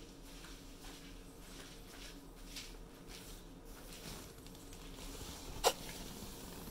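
Faint, irregular ticks and small pops from the glass lower bowl of a Hario siphon coffee maker as its water heats over an alcohol burner, before the boil. One sharp click stands out near the end.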